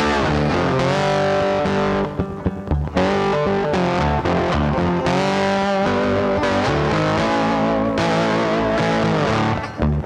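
Background music with distorted electric guitar.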